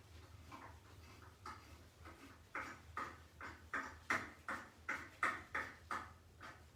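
A tap cutting threads into a steel plate: short squeaks repeating about three times a second, growing louder past the halfway mark.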